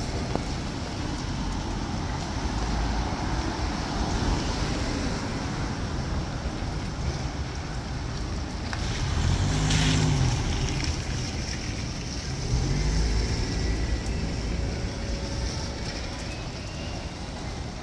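Street traffic noise, a steady hiss over a low rumble. A vehicle passes and swells louder about ten seconds in, its engine pitch gliding, and another swell follows a few seconds later.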